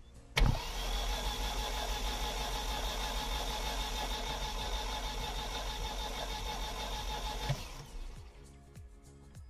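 Opel Vectra B engine spun over on its starter motor with the spark plugs removed. It makes an even, fast whirr with no firing: a click as the starter engages about half a second in, then steady cranking for about seven seconds before it stops. This is done to pump oil through the engine after a long standstill.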